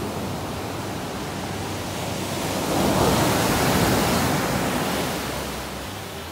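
Ocean surf breaking and washing up a sandy beach: a steady wash of noise that swells as a wave breaks about three seconds in, then eases as the water runs back.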